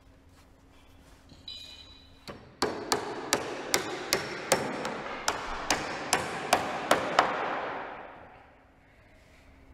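Hammer driving nails into a timber roof batten: a run of about a dozen sharp blows, two to three a second, after a light metallic clink.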